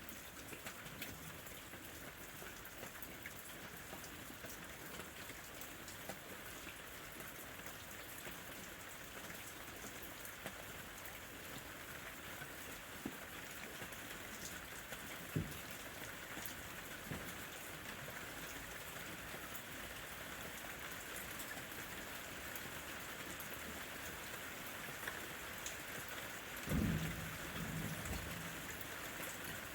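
Steady rain falling, with scattered sharp drop clicks, and a short low rumble of thunder near the end.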